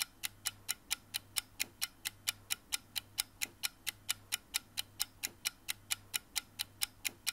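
Steady, even ticking like a clock, a little over four ticks a second, over a faint low hum.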